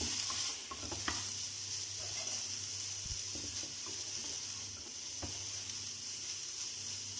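Rice sizzling in a hot nonstick frying pan as it is stir-fried with soy sauce, with a steady hiss and scattered scrapes and taps of the spatula against the pan.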